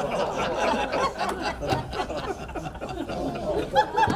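An audience laughing and chuckling, many voices at once.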